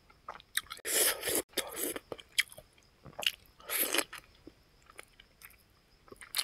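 A person biting and chewing fried pig feet close to the microphone: irregular wet mouth clicks, with two longer noisy stretches, about a second in and about four seconds in.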